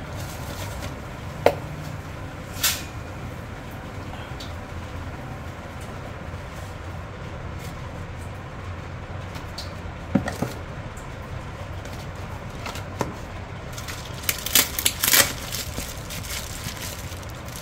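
A cardboard phone box and its packaging being handled: a few scattered short clicks and rustles, gathering into a small cluster near the end, over a steady low hum.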